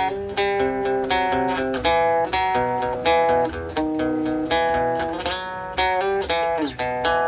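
Guitar picking an instrumental melody of plucked notes and chords, one every few tenths of a second, with a note sliding down in pitch near the end.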